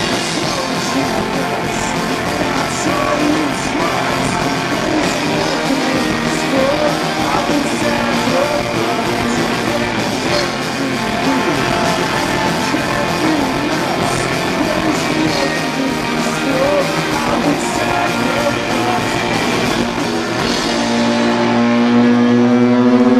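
Live indie rock band playing loud: distorted electric guitars, drum kit with cymbals, and a male lead singer. About 21 seconds in, the drums drop away and a steady held tone rings on as the song ends.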